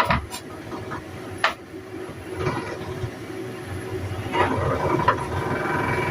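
A kitchen knife slicing fried tofu, with several separate knocks of the blade on the cutting board, over a steady low mechanical hum.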